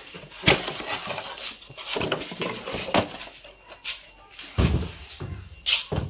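Unpacking noise: a polystyrene foam packing block pulled out of a cardboard box and set down, with irregular scrapes and short knocks and a heavier thud about two-thirds of the way in.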